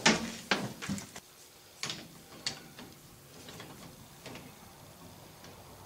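Sharp clicks and knocks of metal fittings and hose being handled on top of a sandblast cabinet: the loudest right at the start, a few more over the next two and a half seconds, then only faint small taps.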